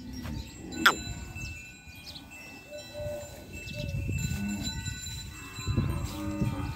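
A herd of Kankrej cattle with bells ringing and low calls from the cattle around the middle and near the end. A short, sharp, high falling cry comes about a second in.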